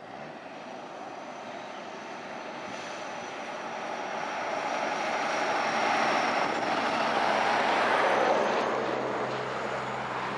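Truck hauling sugar-cane bins approaching along the road, its engine and tyre noise growing steadily louder to a peak about six to eight seconds in as it comes past, with a car going by close near the end.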